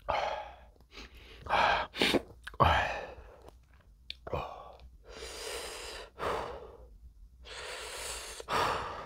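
A man breathing hard through his open mouth: a run of sharp gasps and long, hissing breaths in and out. This is the panting of someone whose mouth is burning from extremely spicy fire noodles.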